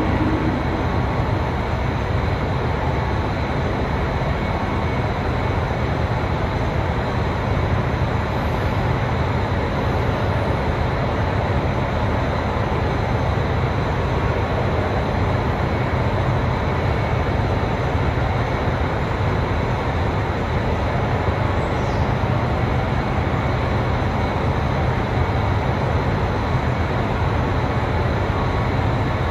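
Diesel limited-express railcar running steadily with a deep, even engine drone, no change in pitch or level throughout.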